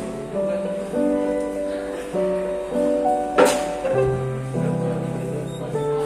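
Soft instrumental background music with held chords that change every second or so. A short burst of noise about halfway through is the loudest moment.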